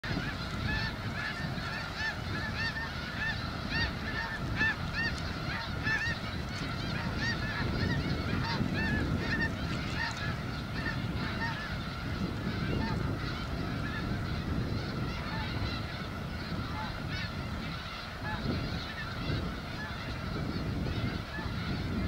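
A large flock of snow geese calling, many short nasal honks overlapping in a continuous chorus, thickest in the first half and thinning later, over a steady low rumble.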